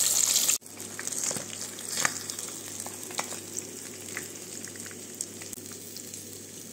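Whole fish frying in hot oil in a pan: loud dense sizzling that drops off sharply about half a second in, giving way to a quieter sizzle with scattered pops and crackles that slowly dies down.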